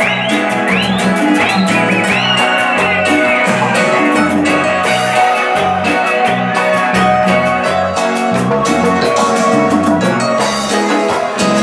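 Live band playing an instrumental passage of Latin dance music, with guitar and keyboard lines over bass and a steady percussion beat.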